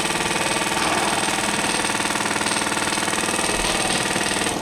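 Electric airsoft gun firing one long full-auto burst, a steady, rapid mechanical buzz of the gearbox cycling that cuts off abruptly near the end.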